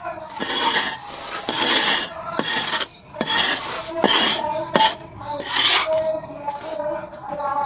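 A piece of charcoal scraped into shape: a run of short rasping strokes, about one a second, with a few sharp clicks between them.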